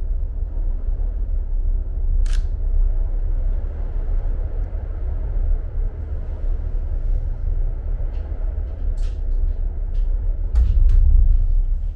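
Steady low rumble of an aerial cable car cabin running along its cables, heard from inside the cabin, with a few brief faint clicks. The rumble grows louder near the end.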